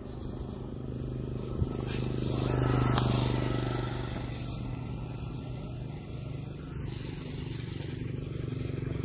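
Komatsu G260 brush-cutter two-stroke engine running steadily under load, driving a 90 mm push-type irrigation pump; a continuous buzzing drone that grows louder near the end.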